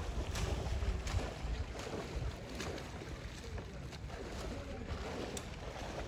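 Hard wind buffeting the microphone as a low rumble that eases off after the first couple of seconds, with scattered short sharp clicks over it.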